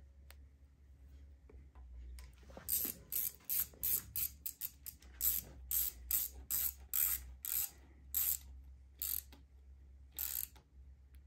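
Hand socket ratchet clicking as the oil pan bolts on a Subaru EJ257 are run down and snugged. A run of short, sharp clicks, unevenly spaced, starting about two seconds in.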